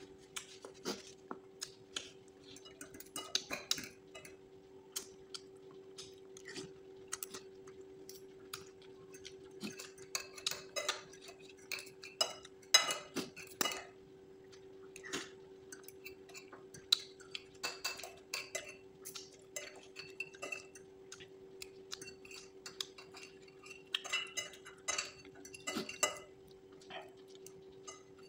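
Metal spoon and fork clinking and scraping against a ceramic bowl of spicy instant noodles, with bouts of slurping and chewing between the clinks. A steady low hum runs underneath.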